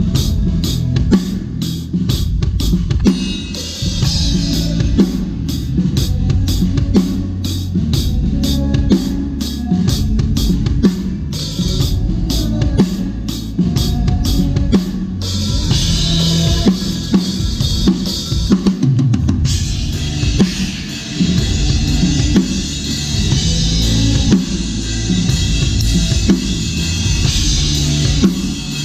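Drum kit being played through a song: a driving beat of bass drum and snare hits with rimshots. Cymbals wash in heavily about halfway and keep ringing through the second half.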